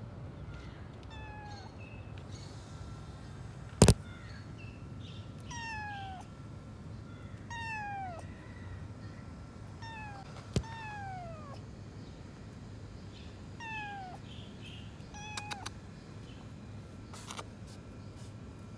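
Kitten meowing over and over, short high calls that slide down in pitch, one every couple of seconds. A single loud sharp knock about four seconds in.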